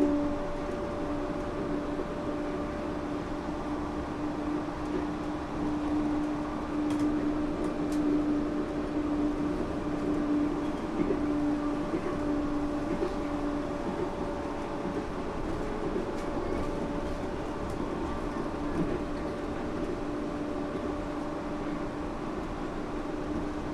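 Yurikamome rubber-tyred automated train running between stations, heard from inside the car: a steady rush of running noise with a steady motor hum that weakens past the middle.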